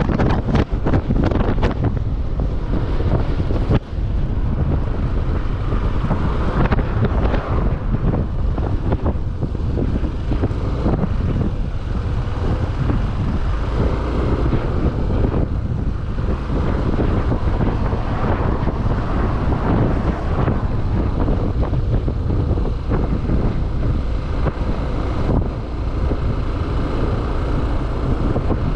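Heavy wind rush buffeting the microphone on a moving motorbike, with the rumble of the ride underneath, steady throughout.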